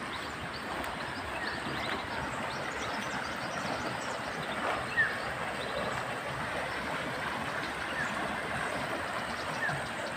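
Stream water rushing steadily, running strong; the flow is taken to be up from morning rain on the hill.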